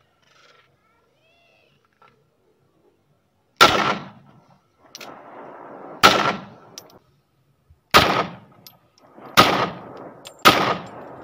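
Zigana Sport 9mm pistol, a Pakistani-made copy, fired in single shots: five sharp shots about one and a half to two and a half seconds apart, starting about three and a half seconds in, each trailing off in echo.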